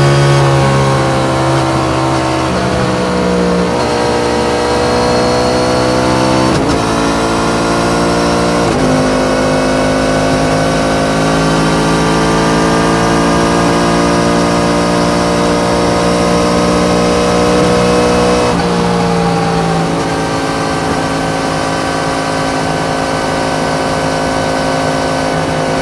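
Yamaha MT-10's crossplane inline-four engine running at highway speed, with steady wind and road noise. The engine note falls and changes pitch in steps during the first nine seconds, with a sudden change about six and a half seconds in. It then climbs slowly and shifts again around eighteen and twenty seconds in.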